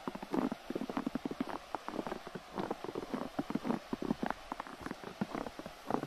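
Footsteps crunching in a thin layer of freshly fallen snow on a wooden boardwalk, a crisp crunch with each step at a steady walking pace.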